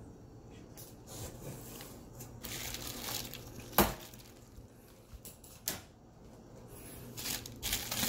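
Scissors snipping through a plastic packing strap, with one sharp snip about halfway through, amid the rustle of bubble wrap and cardboard being handled.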